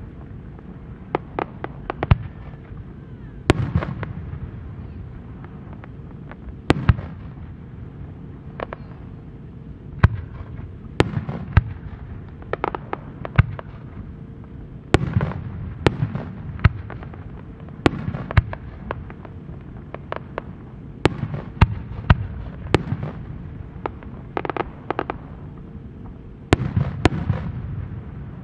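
Aerial firework shells bursting in the sky: about two dozen sharp bangs at irregular intervals, some in quick clusters, each followed by a low rolling echo.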